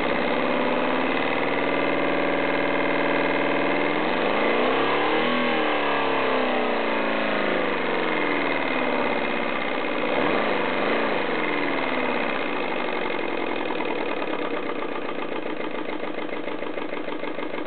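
1935 IMP Tornado V-4 expansion model engine running on compressed air, a steady fast beat whose speed swells and eases back twice, about four and ten seconds in.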